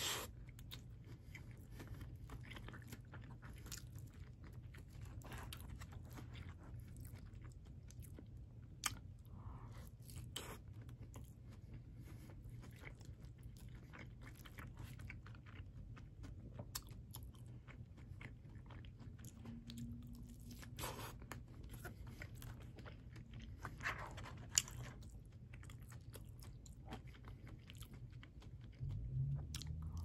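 Close-up chewing and biting of chili cheese tots, with crunches and scattered sharp clicks over a steady low hum.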